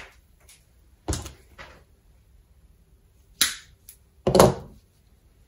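Sharp clicks and knocks of side cutters and electrical cable being handled on a wooden workbench. There is one about a second in, two close together about three and a half seconds in, and the loudest about four and a half seconds in.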